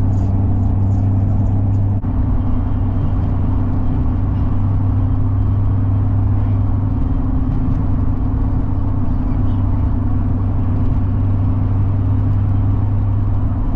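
Car cabin noise while driving: a steady low engine and road drone, with a slight shift in its tone about two seconds in.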